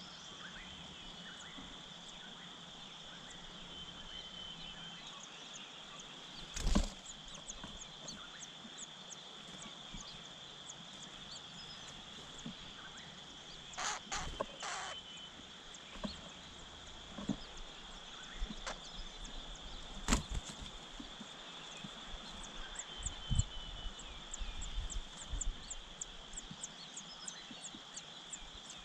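Outdoor ambience with a steady high insect drone, like cicadas or crickets, and rows of faint ticks. A few sharp knocks break in, about a quarter, half and two-thirds of the way through, followed by small thumps and rustles.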